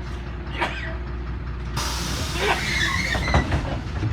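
LiAZ 5292.21 city bus running, heard from inside the cabin as a steady low rumble. Just under two seconds in, a burst of air hiss from the bus's pneumatics starts suddenly and lasts about two seconds.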